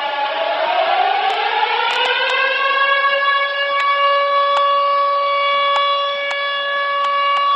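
Winnipeg Jets goal horn, an air-raid siren, dipping in pitch and then winding back up to hold one steady note from about three seconds in. A few faint sharp clicks are scattered through it.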